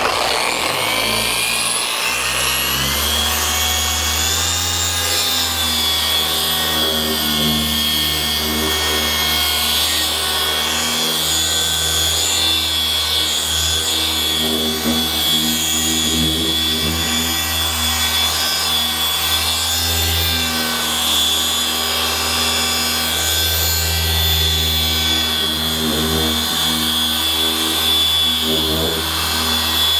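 Machine paint polisher with a foam pad running on a car panel, spinning up over the first couple of seconds and then holding a steady whine over a low hum. This is the final refining pass, 'jewelling' the paint.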